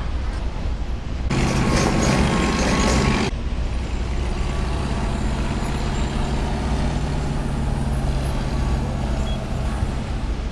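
Large truck engine running steadily with a low hum, louder with a burst of hiss for about two seconds shortly after the start, then settling back to a steady run.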